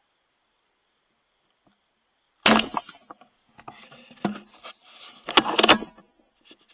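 Near silence, then a sudden loud knock about two and a half seconds in, followed by a run of irregular clattering and rustling knocks, loudest again near the end.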